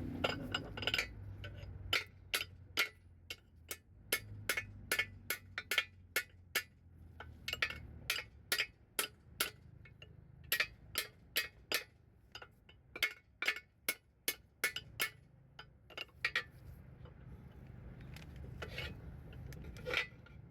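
Hammer tapping on steel transmission parts: dozens of sharp metallic clinks, about two or three a second, in runs with short pauses, thinning out near the end.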